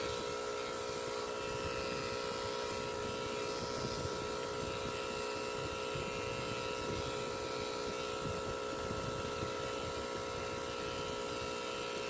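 Cartridge tattoo pen running with a steady electric hum as it works the needle into skin.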